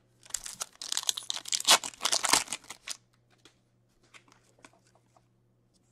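Foil card-pack wrapper crinkling and tearing for about three seconds, then a few faint light ticks of cards being handled.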